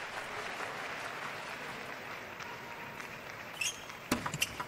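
Steady crowd noise and applause in the arena. Near the end comes a brief squeak, then a quick run of sharp table tennis ball clicks off bat and table as the serve and return are played.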